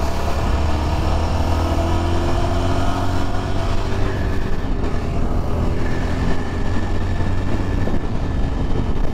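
Yezdi Adventure's single-cylinder engine running steadily while the motorcycle is ridden, its note easing slightly in pitch over the first few seconds.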